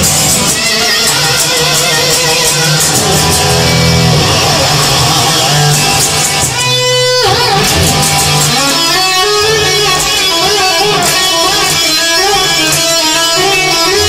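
Recorded song led by electric guitar over a bass line. About seven seconds in, the low end drops out briefly under a single held guitar note, then the full band comes back in.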